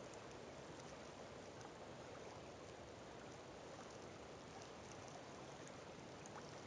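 Faint, steady wash of calm lake water lapping at a stony shore, with a few faint ticks.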